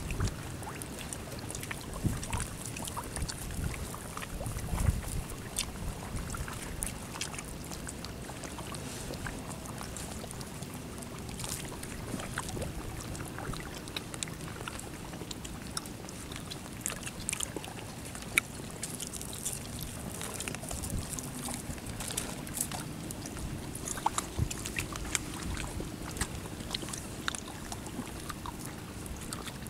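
Strong wind rumbling on the microphone in uneven low gusts, with scattered small clicks and taps throughout.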